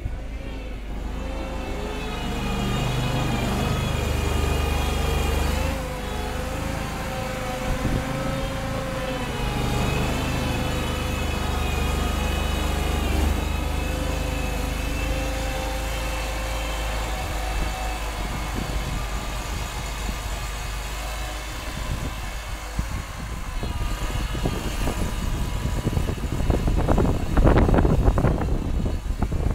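Engine of a homemade wheel loader running as the machine drives and works through snow, its pitch rising and falling with the revs. A rougher, louder rushing noise comes in near the end.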